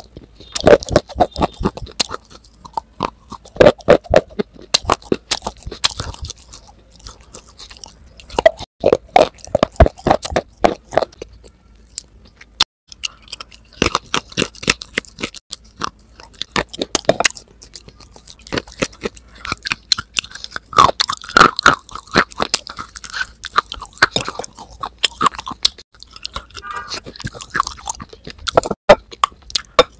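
Close-miked biting and chewing of hard edible clay 'slate' sticks: rapid runs of sharp, crisp crunches that come in bouts with brief lulls between.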